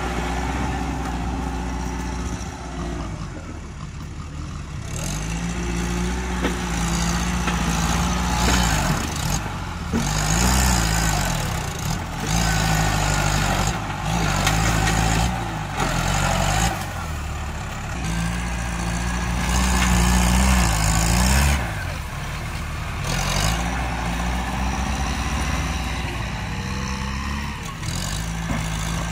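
Diesel farm tractor engine working under load as its front blade pushes into a tree and soil, its pitch rising and falling again and again as it bogs and picks up. Bursts of rushing, crackling brush-and-dirt noise come and go over it.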